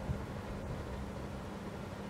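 Steady low rumble of outdoor night background noise with a faint, even hum.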